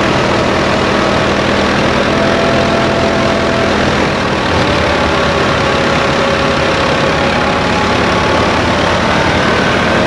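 Massey Ferguson tractor's diesel engine running steadily, belt-driving a wheat thresher whose drum and blower make a loud, even whirring, with faint slowly drifting whining tones over it.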